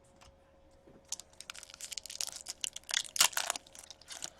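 The wrapper of a hockey card pack crinkling and tearing as it is opened by hand. The opening is hard going: the pack does not open easily. The crackling starts about a second in.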